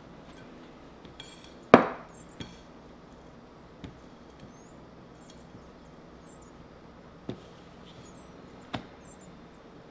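Kitchen utensil knocking on a hard surface: one sharp knock a couple of seconds in, then a few lighter, scattered taps.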